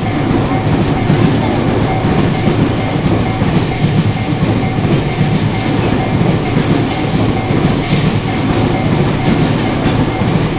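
Tobu Tojo Line electric train passing over a level crossing: a loud, steady rumble and clatter of wheels on the rails. The crossing's warning bell rings faintly in a steady repeating tone behind it.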